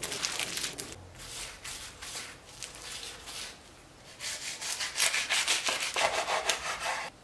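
Quick repeated scraping strokes, growing louder about four seconds in and stopping suddenly near the end.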